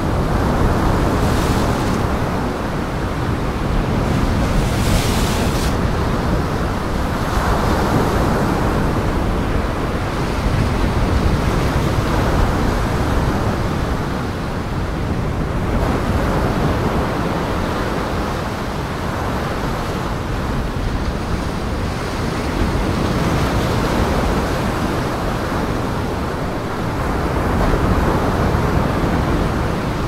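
Lake Michigan surf crashing and washing against the rocks of a pier breakwall, surging and easing every few seconds, with strong wind buffeting the microphone.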